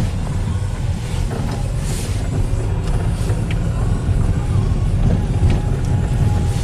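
Chevy Cobalt driving slowly on a wet, rough lane, heard from inside the cabin: a steady low rumble of engine and tyres, with a few faint clicks.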